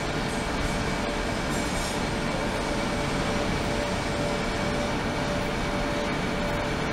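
Ultrasonic cleaning tank running: a steady noise from the ultrasound-driven water, with two faint steady tones in it.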